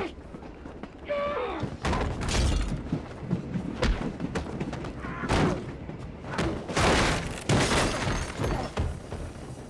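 Hand-to-hand fight sound: heavy thuds and crashes of bodies slammed against wooden compartment walls, with grunts and strained cries between the blows. The biggest impacts come about two seconds in and again around five and seven seconds in.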